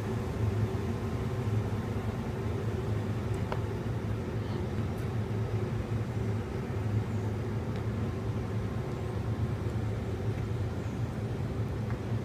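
Steady low drone of a city's distant traffic, with a constant low hum underneath.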